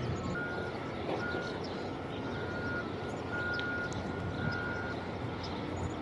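A vehicle's reversing alarm beeping about once a second, each beep short and high-pitched, over a steady outdoor rumble of construction-site machinery and traffic.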